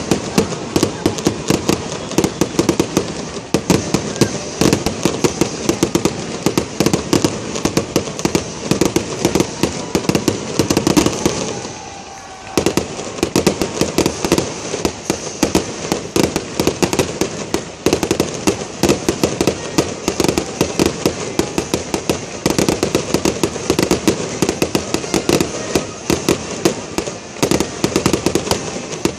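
Aerial fireworks display: a dense, continuous barrage of shell bursts and crackling reports, with a brief lull about twelve seconds in.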